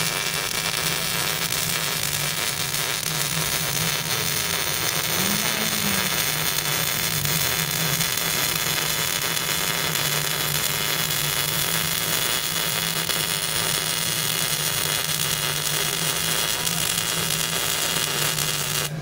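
MIG welder arc running continuously as a bead is laid on sheet metal: a steady hiss with a faint low hum underneath, cutting off abruptly near the end when the arc is stopped.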